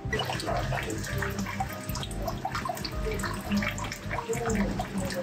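Water splashing and trickling in many short, irregular spatters, over the steady low hum of an electric fan.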